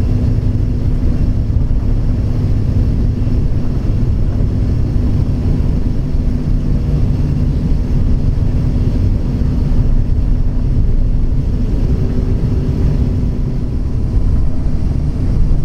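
Cabin noise inside an Airbus A350 airliner taxiing on the ground: a steady, loud low rumble with a constant low hum.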